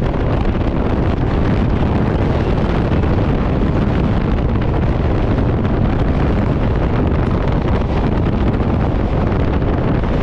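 Wind rushing over the microphone from a moving electric local train, mixed with the train's steady running noise, loud and unbroken.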